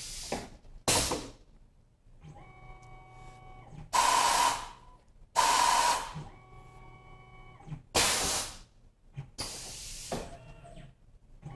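Tormach PCNC 1100 automatic tool changer working through tool changes: three pairs of short, loud pneumatic hisses as the carousel swings in and out and the tool is released and clamped, with a faint steady machine whine between them.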